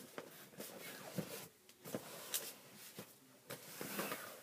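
Large cardboard laptop box being handled and shifted: rustling and scraping cardboard with a series of short knocks and thumps.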